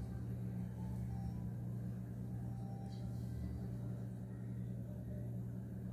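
Steady low hum with no distinct events; the quiet pour of thick batter barely shows above it.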